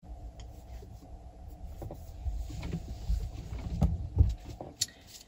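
Handling and movement noise close to the microphone: low rumbling thuds and rustling as a person settles back at a table, with a few sharp clicks of cards being picked up and handled. The thuds are loudest about four seconds in.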